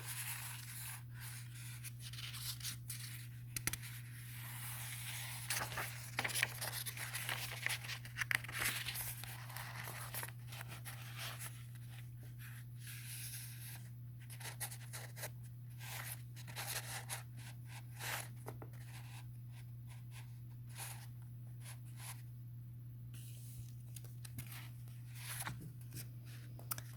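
Paper rustling and scraping with scattered soft clicks, like pages of a book being handled and turned, busiest in the first half. A steady low hum runs underneath.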